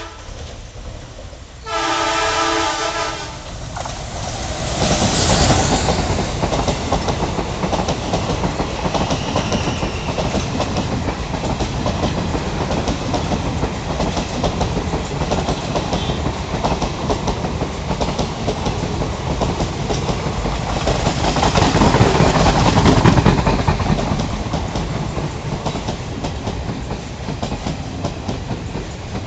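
Express train's horn gives one chord-like blast about two seconds in. The train then runs past at speed: a continuous rumble of coaches with rapid clickety-clack of wheels over rail joints, swelling louder again about three quarters of the way through.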